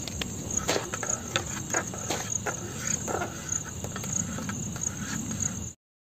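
Insects chirping in a steady, high, pulsing drone, with a run of light clicks and taps from about a second in until about three and a half seconds. The sound cuts off suddenly near the end.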